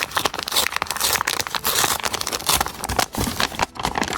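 Packaging crinkling and rustling as the contents of a small ritual kit are handled and unwrapped, a continuous run of irregular crackles.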